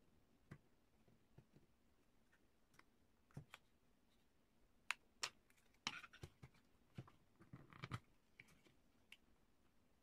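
Faint, scattered clicks and taps of a suction cup and pry tool working an iPhone 5's screen loose from its frame, with a busier run of scraping clicks between about six and eight seconds as the display comes free.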